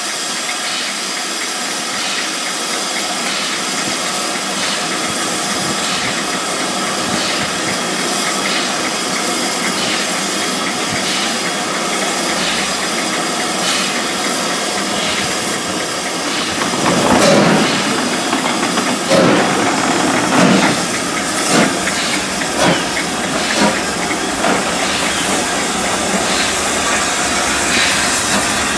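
LNER B1 class steam locomotive 61306 Mayflower pulling slowly away, with a steady hiss of escaping steam and regular light ticks. From a little past halfway, louder heavy beats come every second or so.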